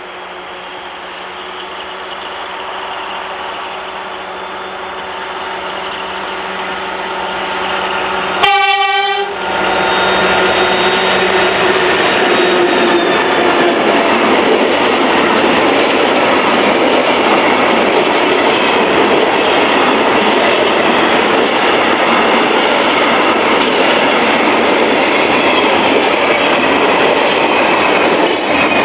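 Class 232 'Ludmilla' diesel locomotive approaching, its engine growing steadily louder, then sounding one short horn blast about eight seconds in. The train then passes close by, its wheels rumbling over the rails with light clicks, loud and steady.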